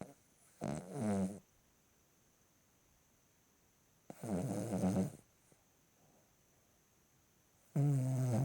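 A two-year-old Cavalier King Charles Spaniel snoring in her sleep. There are three loud snores about three and a half seconds apart, each lasting about a second, with a low pitch that wavers.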